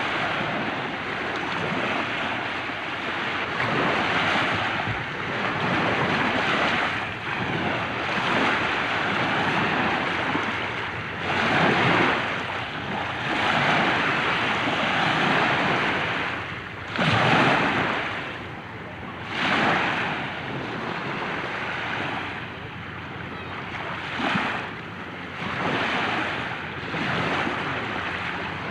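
Light ocean waves washing onto a shore. They come in surges of hissing wash every few seconds, with a stronger surge about twelve seconds in and another about seventeen seconds in.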